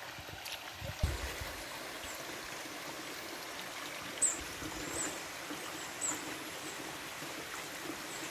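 Steady sound of water running and trickling into a shallow earthen fish pond, with a few short high chirps over it around the middle.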